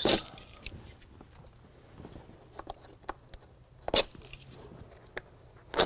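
Protective backing tabs being peeled off adhesive hook-and-loop (Velcro) strips: a few short, sharp crackling rips, one just after the start, one about four seconds in and the loudest near the end, with faint rustling between.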